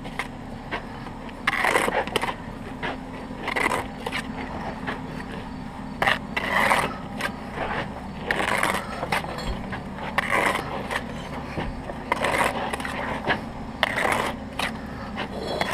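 Steel brick trowel scraping and cutting wet mortar against brick as a wall is laid: a short scrape every second or two, over a steady low hum.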